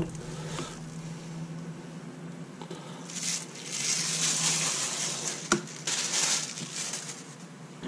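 Thin plastic backing sheet being peeled off a thawed sheet of puff pastry and crumpled in the hand. A rustling starts about three seconds in and lasts a few seconds, with one sharp click partway through.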